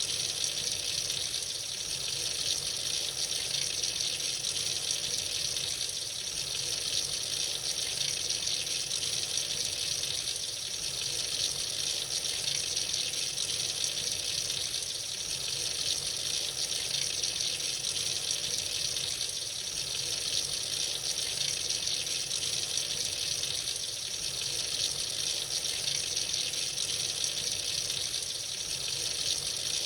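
Water running freely from a tap into a sink, a steady, even rush with its hiss strongest in the high range.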